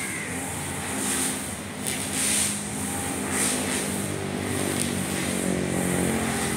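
Husqvarna 542RBS backpack brush cutter's two-stroke engine running at high speed. The 2.2 mm round nylon line swishes through short grass with each sweep, roughly once a second.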